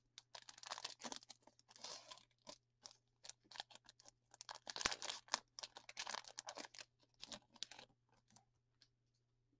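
Foil wrapper of a 2020 Mosaic football card pack being torn open and crinkled by hand: a run of short crackles and tears, busiest in the middle and dying away near the end.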